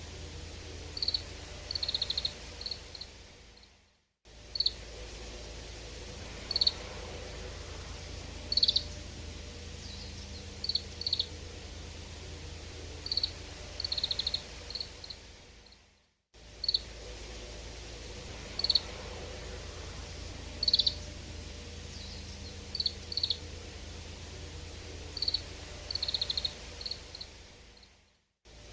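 Oriental greenfinch calls: short high chirping notes in twos and threes and quick runs, over a steady low background hiss. It is a recording about twelve seconds long that fades out and starts again, looping twice.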